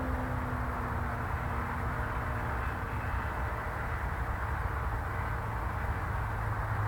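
The engine note of a stock Kawasaki ZX-6R's inline-four fades away after a drive-by, dropping slightly in pitch and dying out within the first couple of seconds. A steady low rumble and outdoor noise follow.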